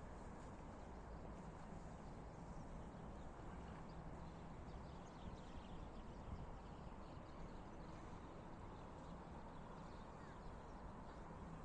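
Faint footsteps crunching in snow at a slow walking pace, over a steady low background rumble.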